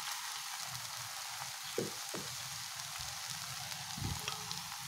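Cabbage and egg omelette sizzling steadily in hot oil in a nonstick frying pan, with a few soft knocks.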